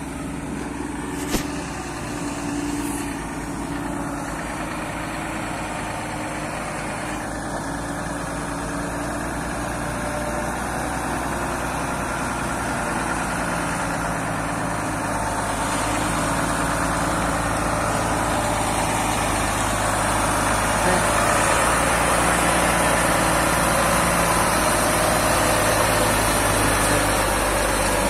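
Diesel engine of a UD Trucks tractor-trailer laden with steel rebar running at low speed as the truck moves slowly, a steady low rumble that gets gradually louder as it comes close.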